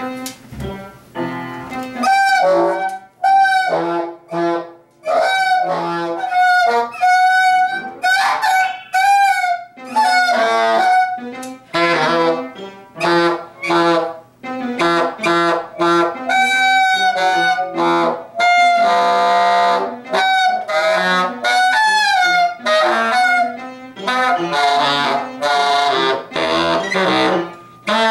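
Saxophone played in short, separate phrases of held and bending notes, some sliding in pitch, imitating dinosaur noises.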